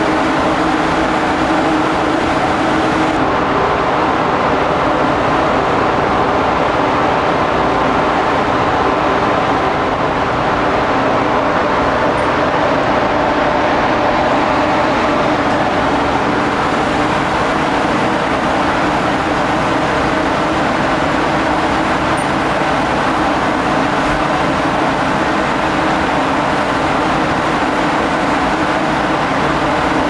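Steady, loud machinery drone of a research ship, with several steady hum tones running underneath.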